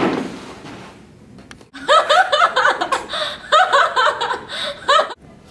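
A young woman laughing hard, in quick repeated bursts, for about three seconds from about two seconds in, then cutting off suddenly. Before the laughter, the noise of a fall onto a carpeted floor fades out.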